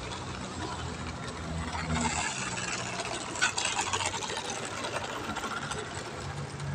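Propeller motor of a plywood RC Piper Cub model plane, running with a steady buzz while the model sits on the runway before take-off.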